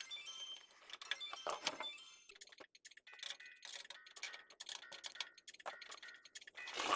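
Rapid clicks and light metallic clinks from PC parts being handled and fitted together, with brief ringing tones between the clicks.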